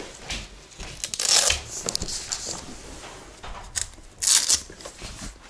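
Rustling and scuffing of people moving about and handling things close to the microphone, with two louder brushing bursts, about a second in and about four seconds in, and a short click just before the second.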